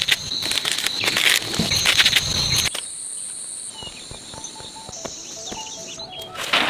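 Insects calling in steady high tones, with dense rustling and crackling for the first couple of seconds. About three seconds in the sound changes abruptly: the rustling stops, different steady high insect tones take over, and faint short calls are scattered through.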